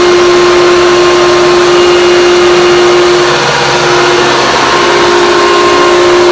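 Hoover Convertible U5002 upright vacuum cleaner with its 800-watt motor running, a loud steady hum with a dense rushing hiss over it. It dips slightly about three and a half seconds in.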